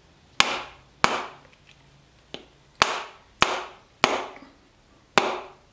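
Hammer blows knocking on a small wooden block assembly: about seven sharp knocks at an uneven pace, the third one lighter, each followed by a short ring.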